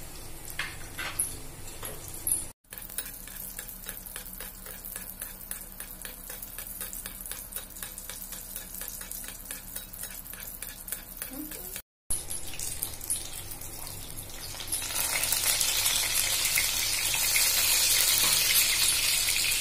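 Crumb-coated fish fillet shallow-frying in hot oil in a pan, sizzling and crackling steadily. The sizzle grows much louder about three quarters of the way through and stays loud.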